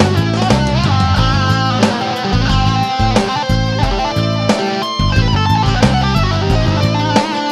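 Fender Stratocaster electric guitar playing an improvised lead in A minor, with bent and wavering notes, over a backing track with a bass line and a steady drum beat.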